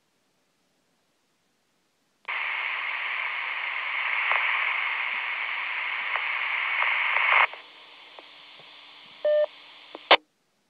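Motorola M-120 VHF mobile radio's squelch opening on a repeater carrier with no voice on it: about five seconds of loud static hiss, then a fainter hiss, a short beep, and a sharp squelch-tail burst as the signal drops.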